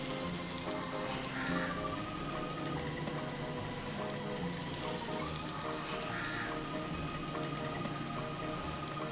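Chicken frying in oil in a miniature karahi, a steady sizzle, with background music.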